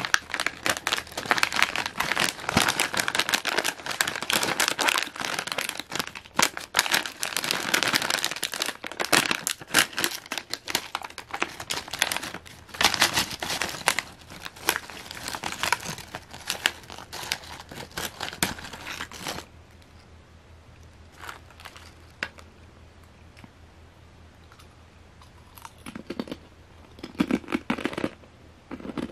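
Foil-lined potato chip bag crinkling and being torn open, a dense run of crackles and sharp rustles that stops suddenly about two-thirds of the way through. A few brief, softer rustles of the open bag follow near the end.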